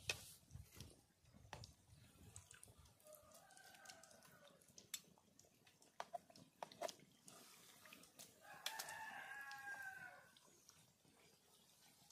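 A rooster crows twice in the background, a shorter crow about three seconds in and a louder one about eight and a half seconds in. Sharp clicks of metal tongs against the aluminium frying pan are heard now and then.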